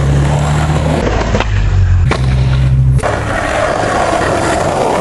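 Skateboard wheels rolling on rough asphalt as a skater approaches, a steady gritty rumble with a few light clicks. A low hum sits under it for the first three seconds and then drops away.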